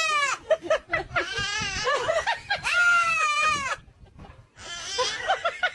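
Goat bleating: four separate calls, some with a quavering pitch, the third the longest.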